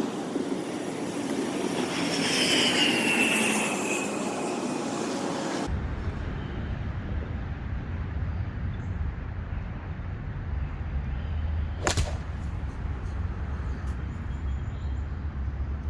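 A vehicle passing by with a slowly falling whine, swelling and fading over the first few seconds, then a steady low background rumble. About twelve seconds in comes a single sharp crack of a golf club striking a ball.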